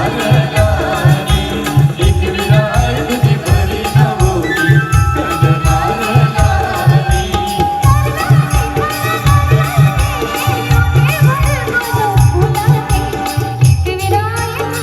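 Instrumental music of a Marathi devotional folk song. A driving drum beat of about three or four hits a second runs under a melody line.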